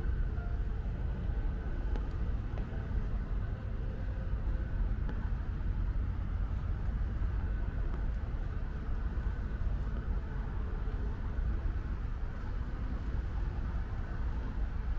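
Steady low rumble of distant road traffic, with light rain falling.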